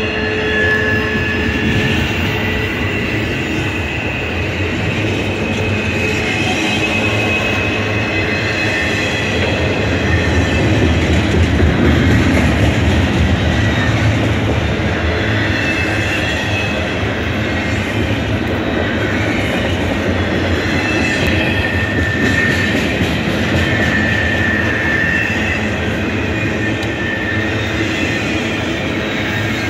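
Double-stack intermodal container train's well cars rolling past close by: steady wheel-on-rail rumble, with faint high wheel squeals coming and going.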